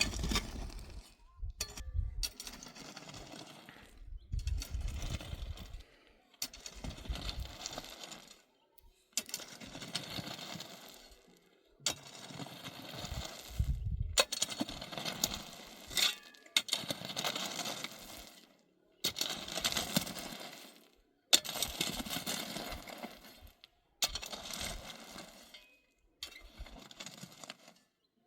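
Small pebbles rattling and clinking as they are scooped up and poured out, over and over, roughly every two seconds.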